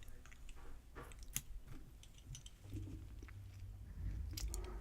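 Small metal clicks and scrapes from a Schlage lock being taken apart by hand, with a few dull handling bumps near the end.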